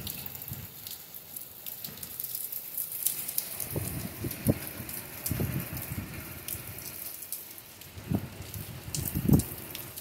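Heavy nor'easter rain falling steadily on the street, with many close drops ticking. Several low gusts of wind buffet the microphone, the strongest near the end.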